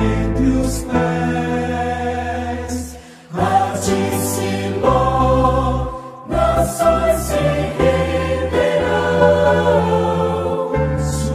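Christian hymn music with choir-like voices, held chords over a low bass line. It dips briefly about three seconds in and again about six seconds in, between phrases.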